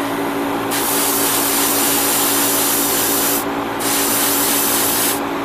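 Iwata Neo airbrush spraying light green paint onto a small model part: a steady hiss of air and paint starting about a second in, pausing briefly twice, over a steady low hum.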